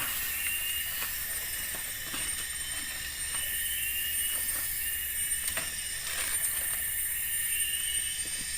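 Forest insects calling steadily in high tones, with a short chirp that repeats every second or so, and a few light knocks scattered through.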